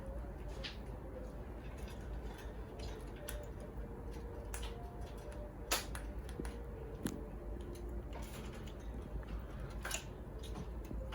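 Ringneck and Quaker parrots playing with homemade toys: scattered small clicks and taps, a few sharper ones, over a steady low hum.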